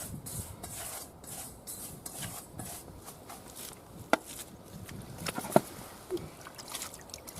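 Fishing bait mix being stirred and kneaded evenly in a bait bowl: repeated short scraping rustles, two or three a second, with two sharp clicks, one about four seconds in and one about five and a half seconds in.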